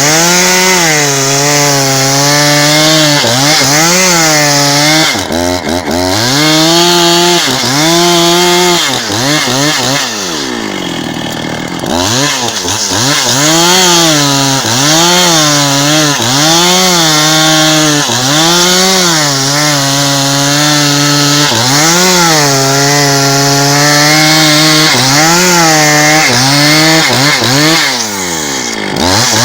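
Husqvarna 272XP two-stroke chainsaw with a 30-inch bar ripping a log lengthwise. The engine's pitch sags and recovers every second or two as the chain takes load, and it falls back toward idle about five seconds in, again for a couple of seconds around ten seconds, and once more near the end before revving back up.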